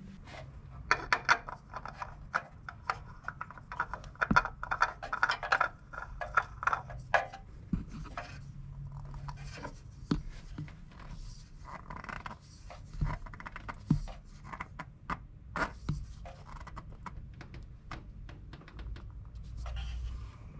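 Scraping, rubbing and clicking of hands handling a new spin-on oil filter and threading it by hand onto the engine's filter mount. The sound is a dense run of scratchy scraping early on, then scattered clicks and rubs.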